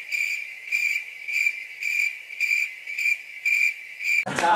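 Cricket chirping sound effect, a steady high chirp pulsing about three times a second and cutting off abruptly near the end. It is the usual comedy-edit cue for an awkward silence after a joke falls flat.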